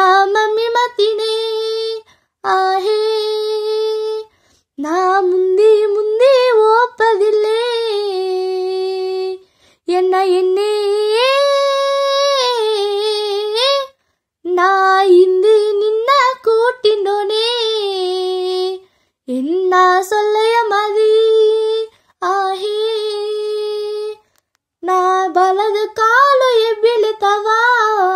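A girl singing a Badaga song solo and unaccompanied, in phrases of a few seconds each with short pauses for breath between them.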